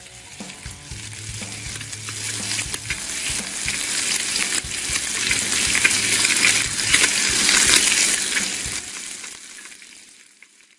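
Hot-pan frying sizzle, swelling to a peak about eight seconds in and then fading out. Low beats from the intro music run under it in the first part.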